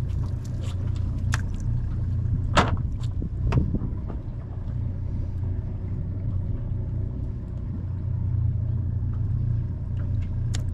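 Steady low drone of the boat's idling motor, with a few sharp knocks and rattles from the cast net being emptied and gathered on the deck, the loudest about two and a half seconds in.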